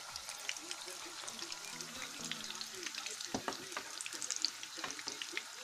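Chicken pakora deep-frying in hot oil: a steady crackling sizzle, with two knocks about three and a half and five seconds in.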